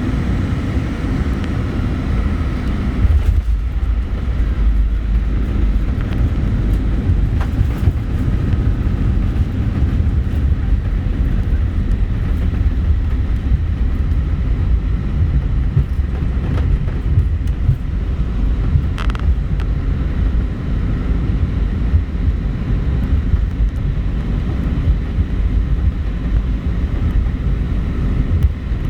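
Airbus A319 airliner's jet engines running as it arrives, heard from outside: a loud, steady rumble with most of its weight low down.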